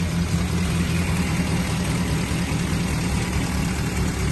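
1949 Ford Prefect's 1172 cc side-valve four-cylinder engine idling steadily with the bonnet open, running sweetly.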